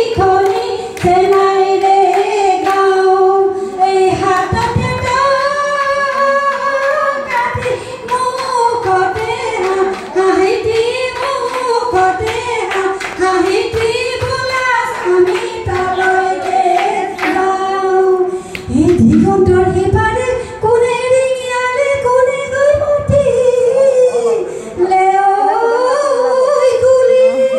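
Women singing a Bihu song, one melody line carried throughout, over sharp rhythmic beats that keep time.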